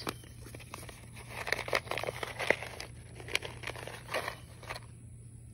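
Crinkling and rustling of a seed packet being handled as seeds are taken out, a run of short irregular crackles.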